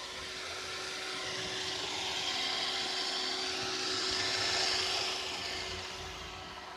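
iRobot Roomba robot vacuum running, a steady whir with a faint hum that grows louder towards the middle and fades again near the end as it moves closer and then away.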